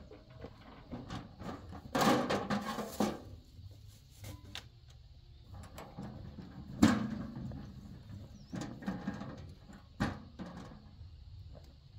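An empty metal wheelbarrow rattling as it is wheeled over a dirt path, with a sharp clank about seven seconds in and a knock near the end as it is tipped up on end against a bamboo wall.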